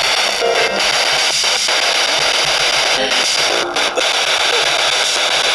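Loud radio static from a ghost-hunting spirit box sweeping through stations: a steady hiss broken by brief dropouts and short snatches of tone.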